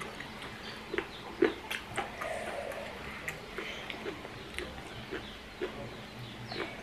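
Close-up mouth sounds of eating with the hands: irregular chewing, lip smacks and clicks, with the loudest smack about a second and a half in.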